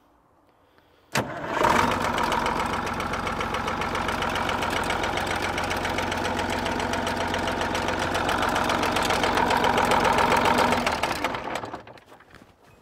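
An abandoned semi truck's engine is started. A sharp click comes about a second in, and the engine catches at once. It runs steadily at idle for about ten seconds, then winds down and stops near the end.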